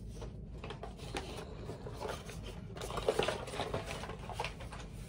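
Light clattering, clicking and rustling of small objects being handled off to one side, busiest about three seconds in.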